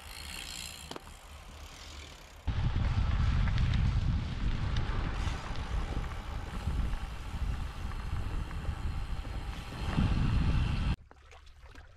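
Wind rushing over the microphone of a camera carried on a moving bicycle, mixed with tyre and road noise; it starts suddenly a couple of seconds in and cuts off near the end. Before it, a bicycle rolls close past the microphone.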